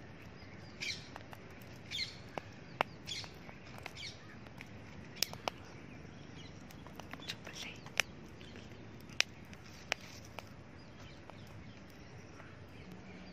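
Birds chirping on and off in short calls, with a few sharp, isolated clicks scattered through.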